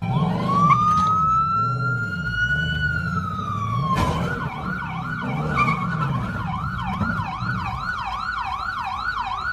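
Police car siren sounding, first a slow wail that rises and then falls, then switching about four seconds in to a fast yelp of roughly two to three sweeps a second, with a sharp click at the switch. A lower wavering sound runs beneath it for most of the first seven seconds.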